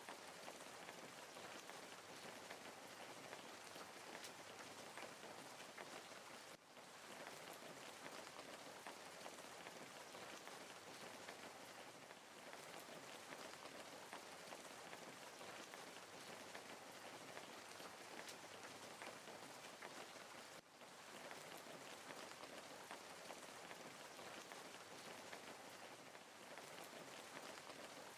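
Faint wood fire crackling: a dense patter of small pops and snaps over a steady hiss, dipping briefly twice.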